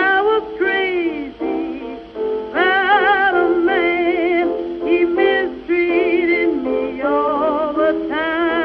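Music: a slow song with a singer holding long notes with a wide vibrato over steady instrumental accompaniment.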